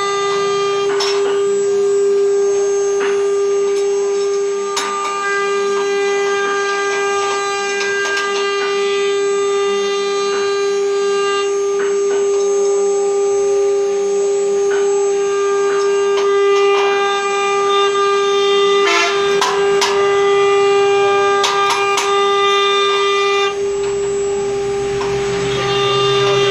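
CNC router running: a steady, high spindle whine with further motor tones that start, stop and shift in pitch as the machine moves, and scattered clicks.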